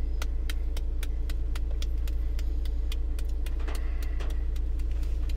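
Scattered hand clapping, a few irregular claps a second, over a steady low rumble.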